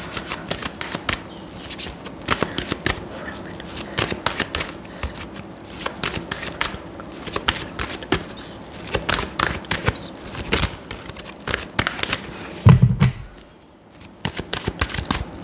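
A tarot deck being shuffled and handled by hand: many quick, irregular card clicks. A single low thump comes about thirteen seconds in.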